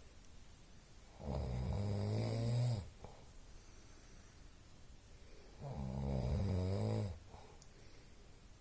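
A person snoring: two long snores about four seconds apart, each lasting about a second and a half.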